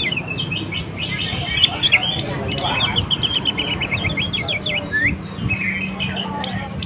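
Oriental magpie-robin singing: fast runs of rapidly repeated chirps broken by short whistled notes, with a couple of loud, sharp notes about a second and a half in. This is kacer song played as a lure to set young or silent kacer singing.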